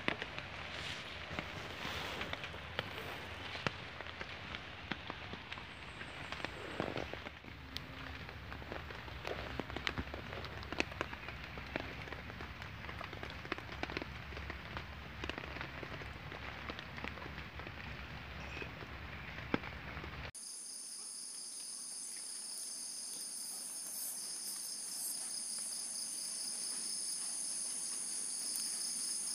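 Steady rain pattering, with many scattered drips. About two-thirds of the way through it cuts to a steady, high-pitched insect chorus that grows slowly louder.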